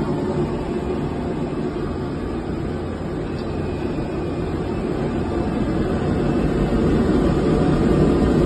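Industrial two-stage gas burner firing: a steady rushing noise of flame and combustion-air blower, growing a little louder toward the end.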